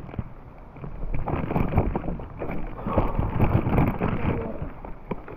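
Irregular rustling, scuffing and knocking on a body-worn camera's microphone as the wearer walks downhill carrying a child whose rubber boots brush against it. A low wind rumble runs underneath.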